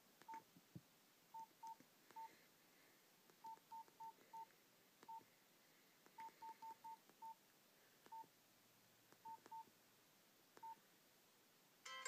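Nokia Asha 210 keypad tones: about eighteen short, identical single-pitch beeps, one for each press of the navigation key, sometimes in quick runs of three or four, with faint key clicks. A plucked-string ringtone starts playing at the very end.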